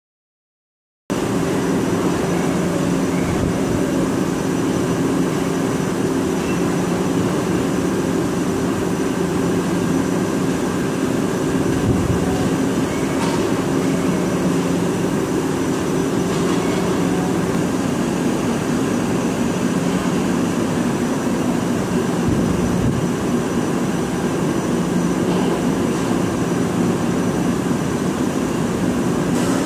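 Hwacheon Hi-TECH 200A CNC lathe hard-turning hardened bearing steel (HRC58): a steady machining hum with several held low tones over a noisy bed, starting about a second in.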